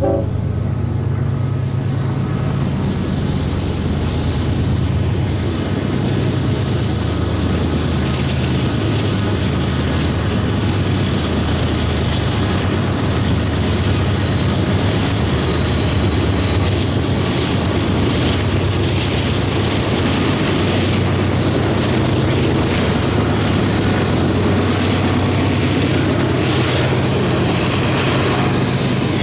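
Diesel-electric locomotives of a BNSF intermodal train pulling past with a steady, loud engine drone, the wheels on the rails adding a continuous rushing noise. The locomotives are working upgrade on Tehachapi Pass.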